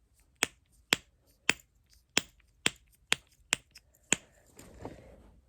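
A fidget toy being worked by hand, making eight sharp clicks at about two a second.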